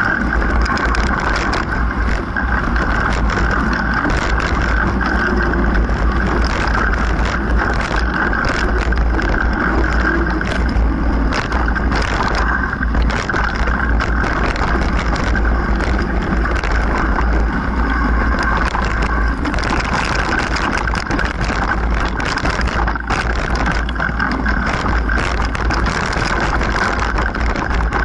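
Wind buffeting a moving action camera's microphone and mountain-bike tyres rolling over dirt singletrack, with constant rattles and knocks as the bike jolts over bumps.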